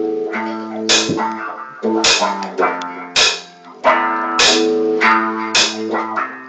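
A band playing: held guitar chords with drum and cymbal hits landing about every half second to a second.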